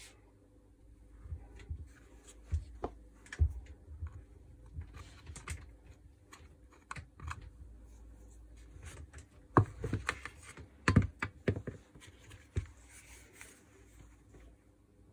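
Irregular clicks and knocks of the opened plastic housing and internal parts of a Makita 4329 jigsaw being handled, with a cluster of louder knocks about ten seconds in.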